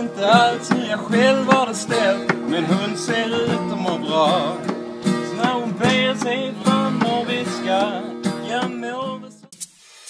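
A man singing while strumming an acoustic guitar. The song breaks off near the end.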